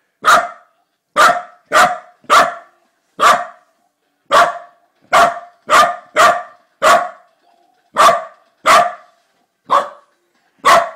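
A corgi barking repeatedly: about fourteen short, sharp barks at an uneven pace, some a second apart and some quicker.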